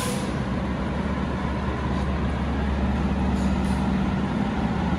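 Fire engine's diesel engine running steadily as the rig pulls out of the firehouse bay, a low hum that grows slightly louder toward the end.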